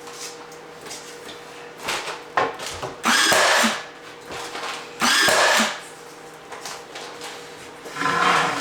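Power drill run in two short bursts of under a second each, about two seconds apart, with a fainter third burst near the end and a few light knocks between them.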